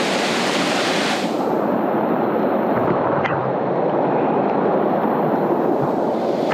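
Loud, steady rush of a rain-swollen, muddy river running in flash flood down rapids. A higher hiss drops away about a second in.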